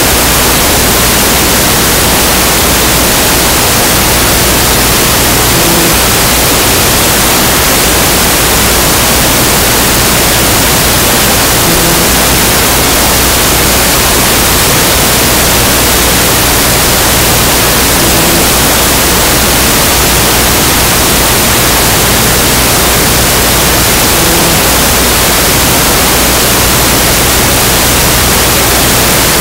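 Loud, steady static hiss covering the whole audio track, with no game sound coming through. Faint short low blips repeat about every six seconds.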